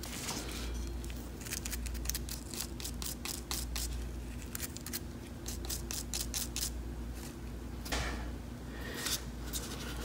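Gloved hands and a small tool picking and brushing aluminium drill shavings away from a freshly drilled hole in a motorcycle engine casing: irregular light clicks and scratches over a low steady hum.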